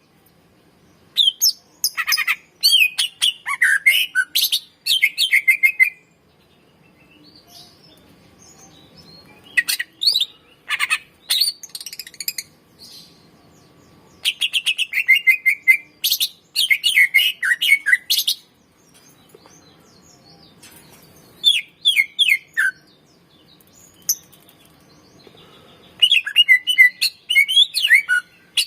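Greater green leafbird (cucak ijo) singing vigorously, in five bouts of fast chirps, trills and whistled phrases with short pauses between them.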